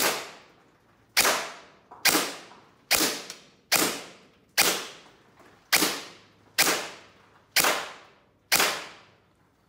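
DSG gel blaster with a one-piece cylinder fired ten times on semi-auto, one shot roughly every second. Each shot is a sharp crack with a brief ringing tail.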